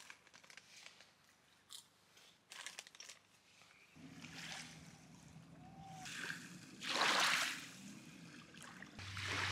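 Crunching of caramel popcorn being eaten, a few crisp crunches over the first few seconds. Then the background changes to open-air ambience, with a louder rush of noise about seven seconds in.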